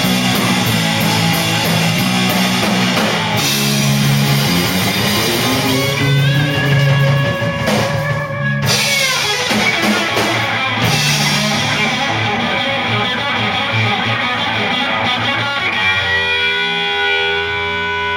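Live rock band playing electric guitar and bass over a drum kit. Past the middle the cymbals fall away, and near the end a held guitar chord rings on.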